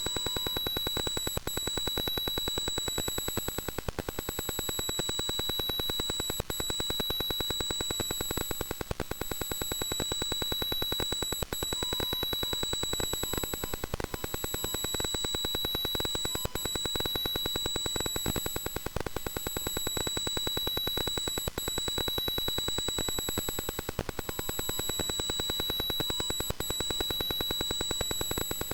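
Unexplained noise coming through V-MODA headphones: a steady high whine over a rapid crackling buzz of clicks, dipping in loudness about every two and a half seconds.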